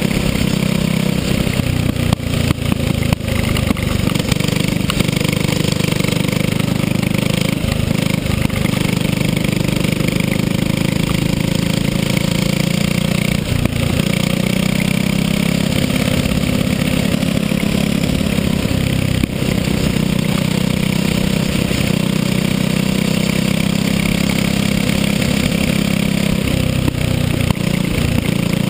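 Racing kart's engine running hard and steady at high revs, heard on board, with a few brief dips where the throttle eases.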